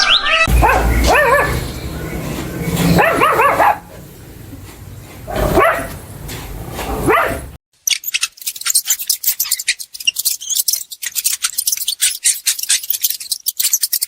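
A dog barking and whining, with several calls over the first half. After that comes a fast, irregular run of sharp clicks and crackles.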